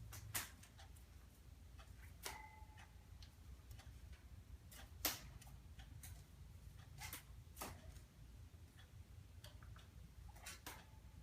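Small bird bathing in water: faint, irregular light splashes and flicks of water. About two seconds in there is a brief ringing tone.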